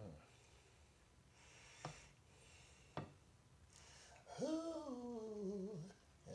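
A man's breaths and two sharp clicks, then a drawn-out hummed note about four seconds in that swells and slides down in pitch over a second and a half.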